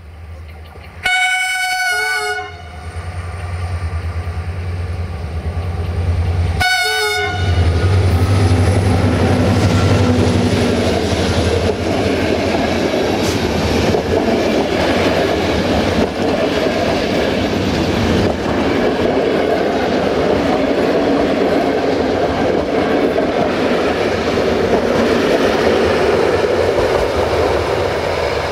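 A General Motors-engined CFR class 65 diesel locomotive sounds its horn twice, a longer blast about a second in and a short one a few seconds later. It then passes close by with its engine running loud. The passenger coaches follow, rolling past with a steady rumble and wheel clatter over the rail joints.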